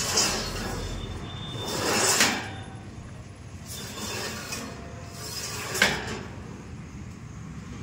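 Stainless steel cabinet panel on a gas stove's base being worked open and shut: several strokes of metal scraping and rattling, with a sharp metal clack towards the end.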